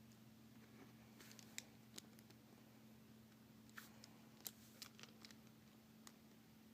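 Faint, scattered clicks of plastic speed-cube pieces (Aosu GTS2 M 4x4) being handled and fitted together, over a low steady hum.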